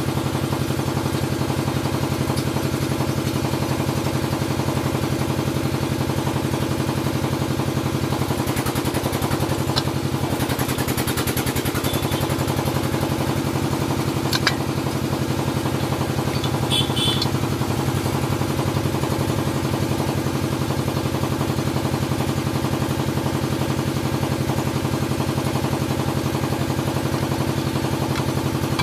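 A small engine idling steadily, a constant low hum, with a few light metal clinks: one about ten seconds in, another near fifteen seconds, and a small run around seventeen seconds.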